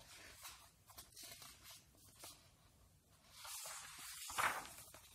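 Faint rustling of a picture book's paper pages being handled, then a louder swish of a page being turned a little past three seconds in, loudest about a second later.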